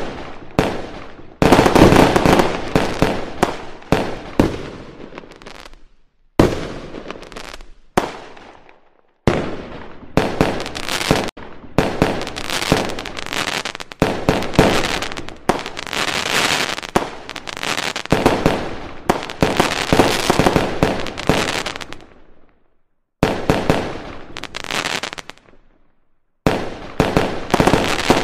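Aerial firework shells bursting in quick succession, a string of sharp bangs, each trailing off, packed closely together. The sound cuts out abruptly a few times between bursts.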